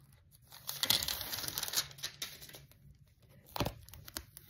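Paper rustling and crinkling as a cut-out paper phone case is handled, for about a second and a half, then a single light tap about three and a half seconds in.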